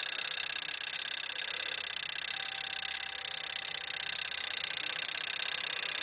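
Simplex 4263 coded fire-alarm pull station running through its code after being pulled: the code-wheel mechanism makes a steady, rapid ticking whir, with the bell silenced.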